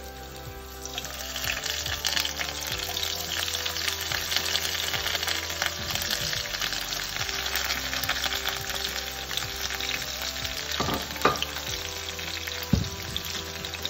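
Sliced onions, curry leaves and green chillies sizzling in hot oil with cumin seeds in a nonstick wok. The sizzle swells about a second in as they go into the pan, and a couple of sharp knocks come near the end.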